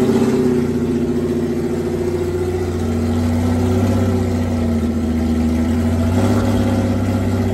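Porsche 911 GT3 race car's flat-six engine running at low revs with small throttle blips as the car creeps into an enclosed trailer.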